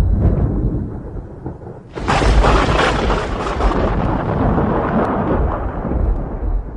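Thunder: a low rumble dies away, then a sharp crack about two seconds in rolls off into a long rumble that fades toward the end.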